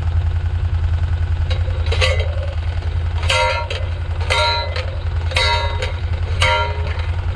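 Fence posts being driven with a post pounder: sharp, ringing metallic blows about once a second, starting about a second and a half in, over a steadily running engine.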